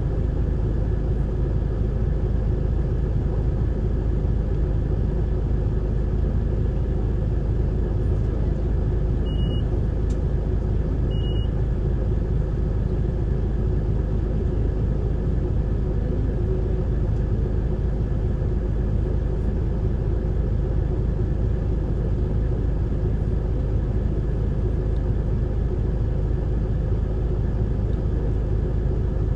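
Running sound of an Isuzu Erga city bus (PDG-LV234N2) with its six-cylinder turbo-diesel, heard from on board as a steady low rumble of engine and road noise. Two short high beeps about two seconds apart sound near the middle.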